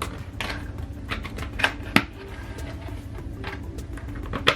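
Plastic LEGO bricks clicking and clattering as pieces are handled and pressed together, with several sharper clacks, the loudest about two seconds in and again near the end.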